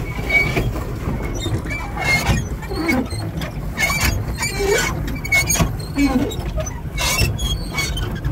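Pedal boat's pedal mechanism squeaking as it is pedalled, a short squeal about once a second, over a steady low rumble.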